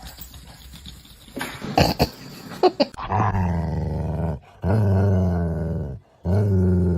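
A dog growling in long, low, drawn-out stretches, three in a row with short breaks, starting about three seconds in. Before them, a few light knocks and rustling.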